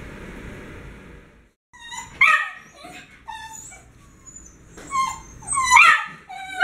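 A miniature schnauzer whines and yips in a run of short, high-pitched cries, excited while waiting for its food. Before the cries, a steady background hiss cuts off about a second and a half in.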